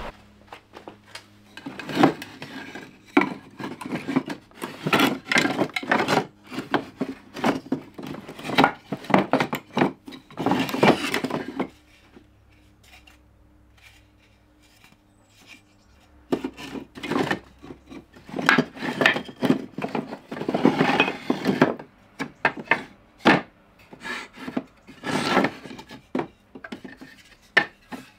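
Wooden offcuts knocking and clattering against each other as they are rummaged through by hand in a plastic crate. There are two spells of sorting with a pause of about four seconds midway.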